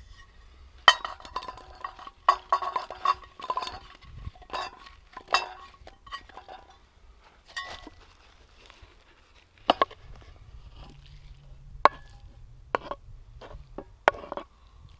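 Metal utensil clinking and scraping against a cooking pot: a quick run of clinks as it stirs, then single sharp clinks a couple of seconds apart.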